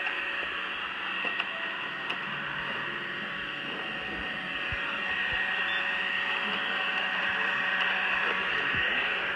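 PureClean robot vacuum running: a steady whir of its motors with a high, even whine, getting a little louder about halfway through, with a few light clicks.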